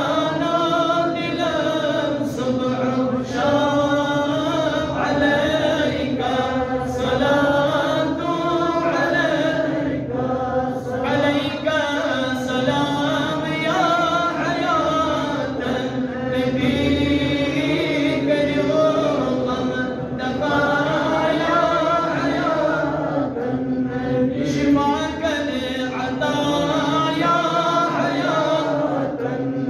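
A man's voice chanting a melodic Islamic devotional recitation, with long held notes that glide up and down.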